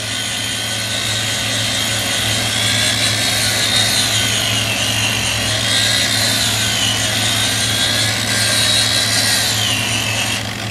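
Corded DeWalt drill running steadily, spinning a foam buffing pad that spreads headlight cleaner over a plastic headlight lens. Its motor whine drifts slightly up and down in pitch.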